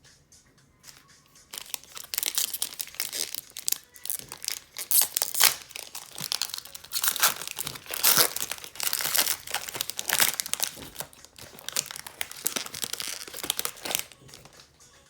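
Plastic foil wrapper of a Panini Chronicles baseball card pack crinkling and tearing as it is ripped open and handled. The dense crackling starts about a second and a half in and dies away near the end.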